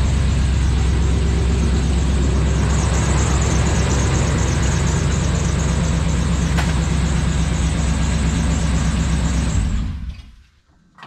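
A loud, steady engine or motor running, with a low hum and a hiss above it, that stops fairly suddenly about ten seconds in.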